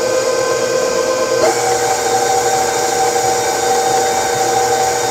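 Electric stand mixer's motor running steadily with a whine, mixing a wet, shaggy whole-wheat bread dough. Its tone shifts up once about a second and a half in.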